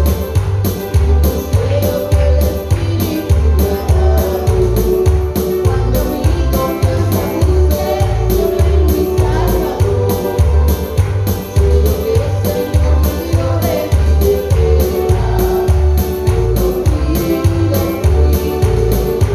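Live gospel praise music with a steady beat, pulsing bass, tambourine-like percussion and a held, sung melody line.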